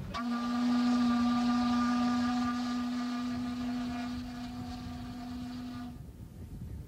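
Steam whistle of the restored streetcar steamboat Minnehaha blowing one long, steady blast of about six seconds, then cutting off.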